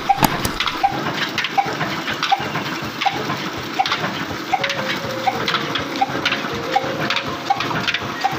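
Water gushing from a belt-driven Ruston centrifugal pump into an irrigation channel. Under it is a regular knock about every 0.6 s from the slow-running old stationary engine and belt drive.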